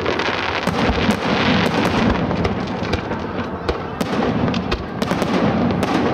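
Aerial fireworks display: shells bursting overhead in an irregular stream of sharp bangs and crackling over a continuous rumbling wash.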